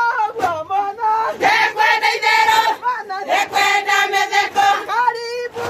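A group of women singing Kikuyu ngemi, a celebratory chant, in chorus on long held notes, with a high wavering ululation trill near the end.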